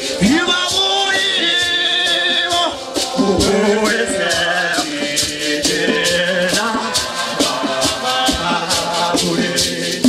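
Men's choir singing together, accompanied by hosho gourd shakers rattling in a steady beat.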